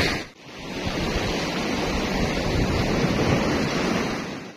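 Surf washing over a rocky reef shore, with wind on the microphone, a steady rush of noise. It fades in just after the start and drops away to silence at the very end.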